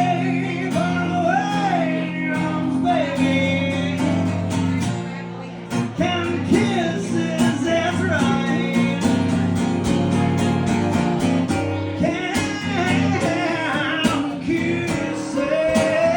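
Live song: acoustic guitar with a man singing, the voice wavering with vibrato over steady guitar chords.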